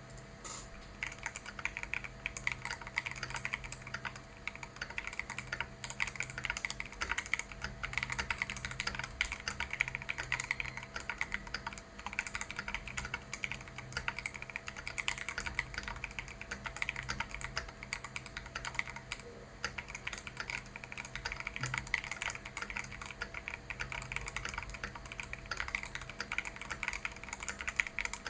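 Continuous typing on a Keydous NJ80 mechanical keyboard with an aluminium plate, Feker Holy Panda tactile switches and stock keycaps: a dense, unbroken patter of key presses that starts about a second in.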